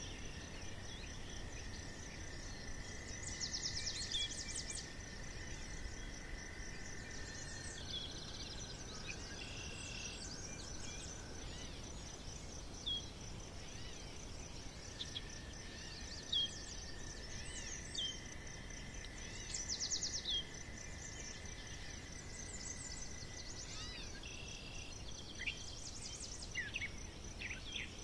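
Woodland ambience: small birds chirping and trilling at intervals over a steady high insect-like buzz.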